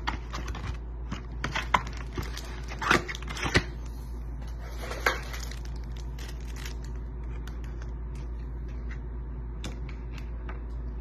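Trading cards and rigid plastic top loaders being handled: several sharp clicks and rustles in the first five seconds, then only faint ticks over a steady low hum.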